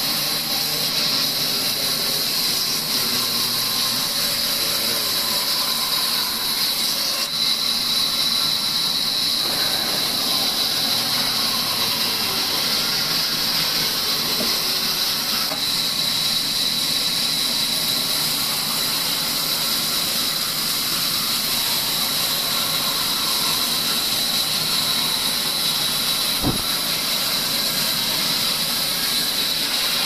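Large band saw ripping a timber plank lengthwise: a steady, loud high-pitched hiss and whine of the blade cutting through the wood. A single sharp knock near the end.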